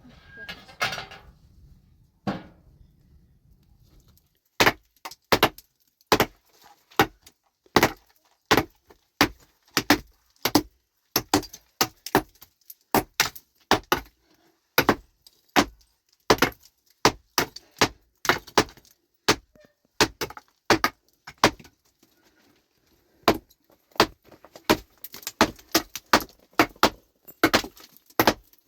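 Metal hand tool, such as a pickaxe, striking rock again and again to break up stone, with sharp clinking hits about one to two a second. The strikes start about four seconds in and pause briefly past the middle.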